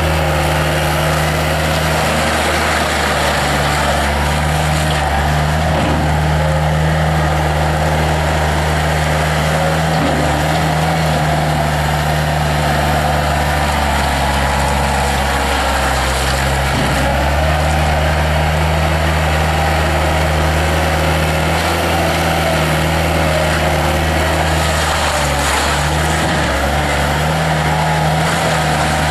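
1995 Bobcat 853 skid steer loader's diesel engine running steadily, its pitch dropping briefly a few times and then recovering.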